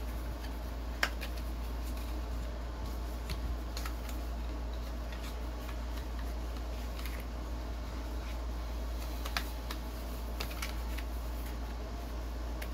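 Scattered light clicks and taps of paper and cardboard packaging being handled, the sharpest about a second in, over a steady low hum.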